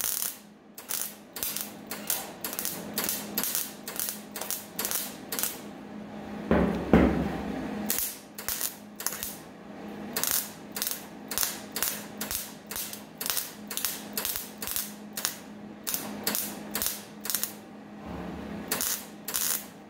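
MIG welder tack-welding a cut-and-reset sheet-steel body seam on a 1949 Chevrolet, in short crackling bursts about two a second, over a low steady hum. One longer, louder burst comes about seven seconds in.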